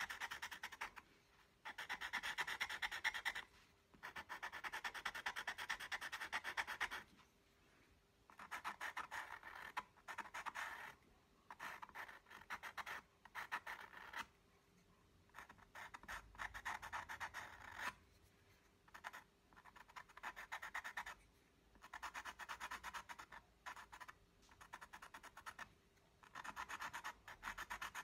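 Graphite pencil scratching across paper in quick, rapid hatching strokes. The strokes come in runs of one to three seconds with short pauses between.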